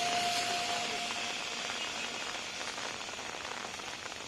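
Steady rain falling on a wet road and brick pavement, an even hiss. A passing vehicle's engine whine fades away about a second in.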